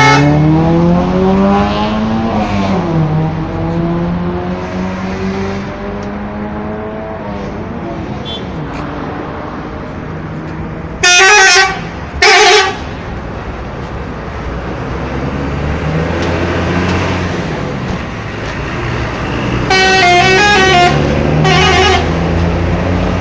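Bus engine running on the road, rising in pitch as it speeds up at the start. Two short, loud horn blasts come about eleven seconds in. Near the end a bus's 'telolet' multi-tone horn plays a short stepped tune.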